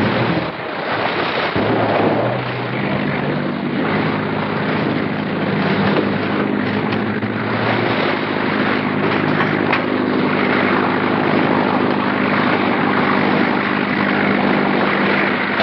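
Motorboat engine running with a steady low drone over a constant rushing noise, settling to an even pitch a few seconds in; a few faint knocks sound in the middle.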